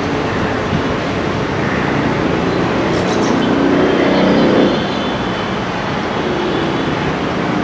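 Steady noise of road traffic. It swells to a peak about four and a half seconds in and drops back abruptly.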